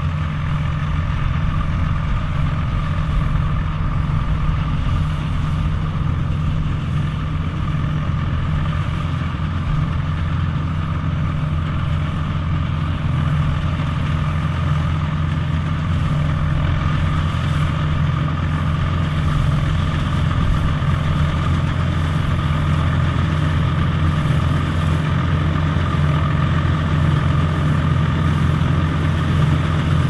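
A BM-Volvo tractor's diesel engine and the Dronningborg D1200 trailed combine harvester it pulls, running steadily as the combine threshes barley. The engine holds an even, unchanging pitch under load, with the combine's machinery humming over it.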